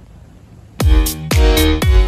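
Electronic dance music with a heavy kick drum about twice a second, starting suddenly about a second in after a moment of faint background noise.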